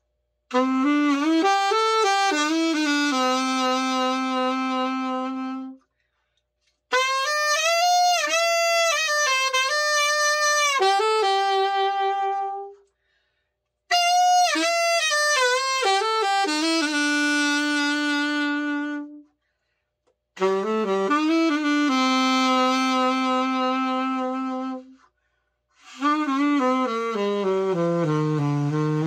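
Yamaha YAS-62 alto saxophone play-tested after a full overhaul: five short melodic phrases with brief pauses between them, each ending on a long held note. The last phrase steps down to the low end of the horn near the end.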